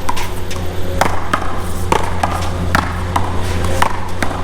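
A one-wall paddleball rally: a rubber ball is struck by paddles and smacks off the concrete wall in a run of sharp cracks, about two or three a second at irregular spacing, over a steady low rumble.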